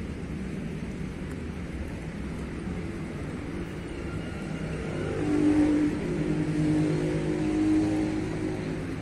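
Street traffic noise, with one motor vehicle's engine passing close by: it grows louder about four seconds in, peaks soon after and fades again near the end.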